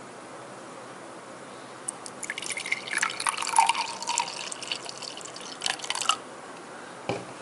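Liquid rust remover poured from a plastic bottle into a glass, splashing and trickling for about four seconds before stopping. A single short knock follows near the end.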